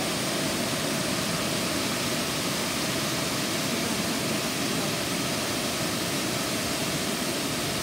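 Amicalola Falls' white water rushing and splashing down the rock cascades close by: a steady, unbroken rush.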